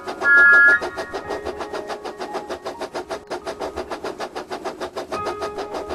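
Steam locomotive sound effect: rapid, even chuffing throughout, with a loud two-note whistle blast right at the start.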